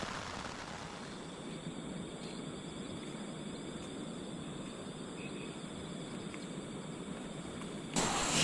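Faint, steady outdoor night ambience: a low hiss with thin, steady high-pitched tones. About eight seconds in, a louder rush of noise with sharp clicks cuts in suddenly.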